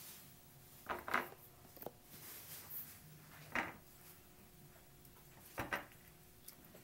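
Table knife clinking against a ceramic plate while slicing a peeled banana: a few short, separate knocks as the blade goes through onto the plate.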